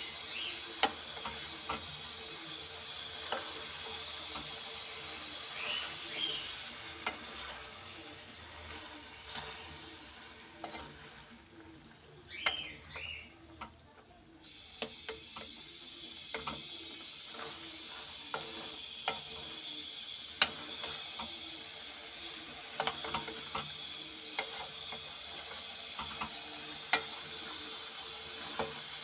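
Wooden spoon stirring chunks of potato and eggplant in an aluminium pot, with a steady sizzle from the frying vegetables and scattered sharp clicks and knocks of the spoon and pieces against the pot. It goes quieter for a few seconds about halfway through.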